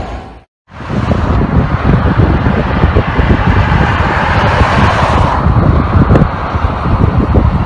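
Engine noise of a Boeing 737-8ZY jet airliner on final approach, with wind buffeting the microphone. It starts after a short dropout about half a second in.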